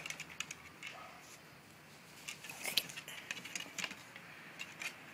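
Shiba Inu moving about on a wooden deck and nosing a chenille mat: scattered light clicks and scuffs, the sharpest a little under three seconds in.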